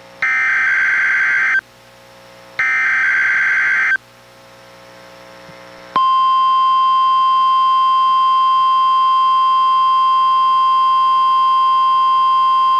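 NOAA Weather Radio Required Weekly Test over a Reecom R-1630 weather radio: the last two of the three SAME digital header bursts, harsh warbling data screeches about a second and a half each with a pause between. About six seconds in, the steady 1050 Hz warning alarm tone starts and holds.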